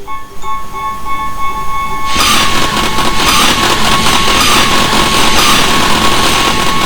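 Japanese level-crossing warning bell ringing in rapid repeated dings. About two seconds in, a passing train joins it, loud with a rhythmic clatter of wheels over rail joints.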